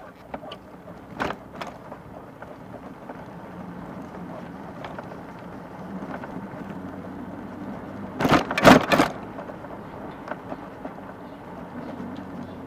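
Street traffic and road noise heard while riding an electric bike, a steady low rumble. A few sharp knocks come about a second in, and a loud short cluster of knocks or rattles about eight seconds in.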